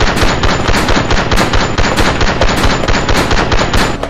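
Rapid automatic gunfire: one continuous burst of machine-gun-like shots, with stronger shots about three times a second, stopping near the end.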